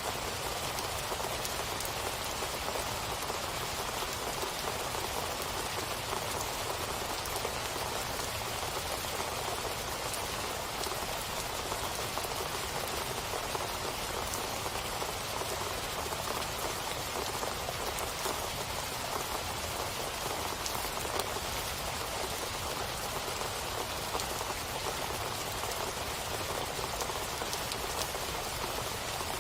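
Steady rain falling, an even hiss with many small drop patters and no letup.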